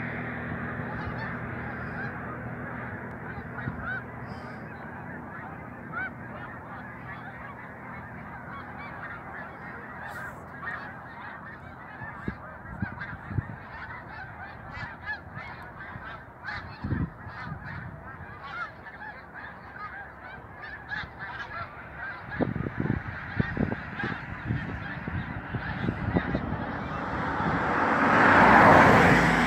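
A large flock of snow geese calling in flight: a continuous din of many overlapping high, yelping honks that swells to its loudest near the end.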